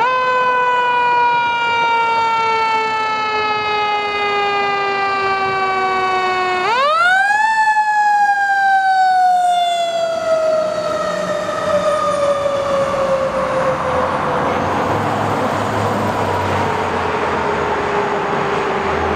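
Fire truck siren wailing: the pitch climbs quickly, slides slowly down, climbs sharply again about six and a half seconds in, then winds slowly down. In the second half the low rumble of the ladder truck's engine and tyre noise come in as the truck passes close by.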